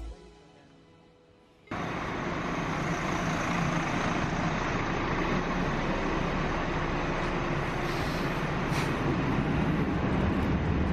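Airport apron bus running, a steady engine rumble with hiss that starts abruptly less than two seconds in.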